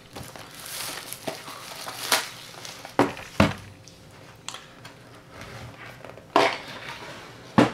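Plastic shrink wrap crinkling as it is pulled off a cardboard retail box, then several sharp knocks and taps as the box is handled and set down on a wooden tabletop.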